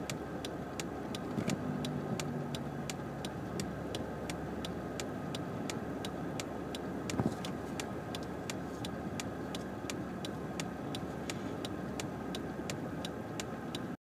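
A car idling at a stop, heard from inside the cabin, with a turn-signal indicator ticking evenly about three times a second. A single brief knock comes about seven seconds in.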